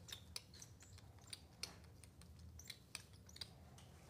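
Near silence: a low steady hum with faint, irregular small clicks and ticks scattered throughout.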